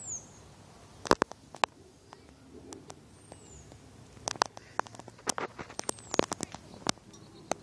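Irregular sharp clicks and taps from handling a handheld camera. A bird's short, high, falling chirp repeats about every three seconds.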